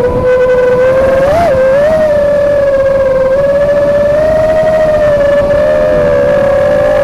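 Brushless motors of an FPV racing quadcopter (Dragonfly Hurricane 2207 2500KV spinning three-blade 5-inch props) whining loudly in flight, heard from the onboard camera. The pitch wavers with the throttle, with a short upward blip about one and a half seconds in.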